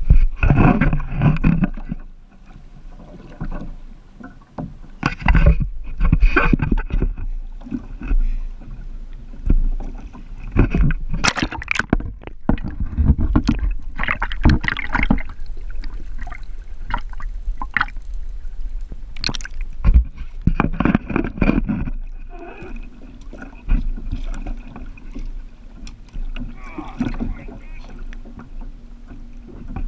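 Seawater sloshing and splashing around a kayak and a waterline camera that dips in and out of the sea, in irregular surges over a constant low rumble. A few sharp knocks sound against the hull.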